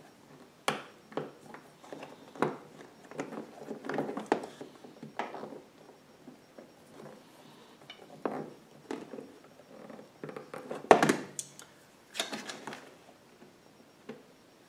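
Hand-tool work inside a generator frame: pliers ratcheting a nylon hose clamp tight on a fuel hose, heard as irregular small clicks and knocks. A sharper knock comes about eleven seconds in.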